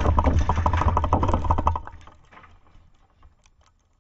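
Dense crackling and popping from a firework just after its blast. It thins out about two seconds in and dies away into a few scattered pops.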